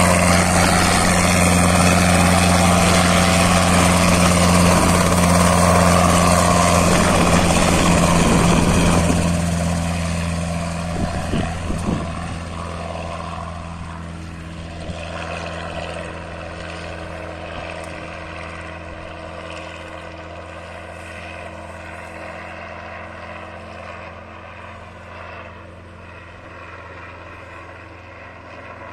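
Robinson R22 piston-engined helicopter with a two-bladed main rotor departing after take-off: its steady engine and rotor drone is loud at first, then drops off after about nine seconds and keeps fading as it flies away.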